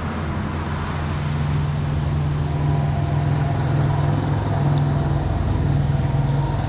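A motor vehicle engine running steadily close by, a constant low hum whose pitch shifts slightly about halfway through.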